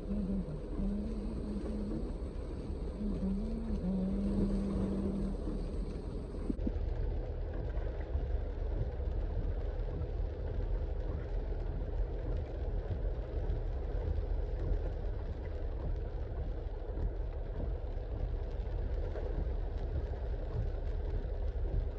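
Steady low rumble of vehicles driving through floodwater on a rain-soaked road. A low droning tone comes and goes during the first five seconds.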